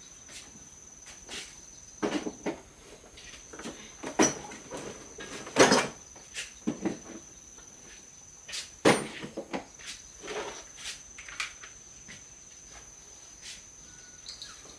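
Irregular knocks and clatters of hard objects being handled and set down, the loudest about halfway through and again a little later, over a steady thin high-pitched tone.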